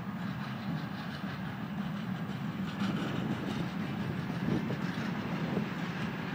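Train of flatcars and a passenger coach rolling past close by: a steady rumble of steel wheels on the rails, with light clacking as the wheels cross the rail joints.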